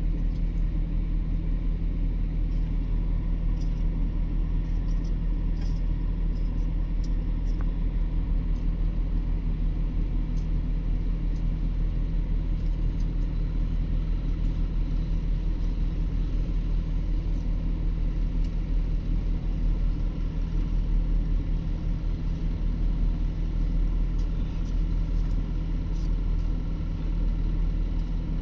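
Excavator's diesel engine running steadily, a low even drone.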